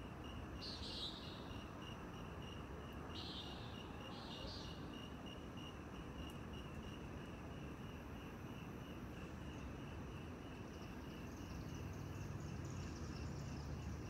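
Crickets chirping in a steady, fast pulse, with a few short higher calls in the first five seconds and a buzzier insect sound joining near the end, over a low steady rumble.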